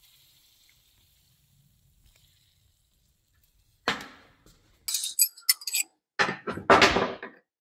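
Hand tools and metal parts clinking on a workbench: quiet at first, then a sharp clink about four seconds in, a quick run of light clicks, and a longer, louder clatter near the end.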